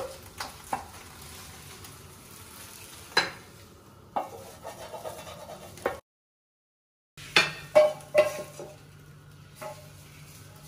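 Wooden spoon knocking and scraping against a nonstick frying pan as scrambled eggs are stirred and scraped out onto a plate, over a faint sizzle. The sound cuts out completely for about a second just past the middle, then more sharp clatters follow with a low steady hum.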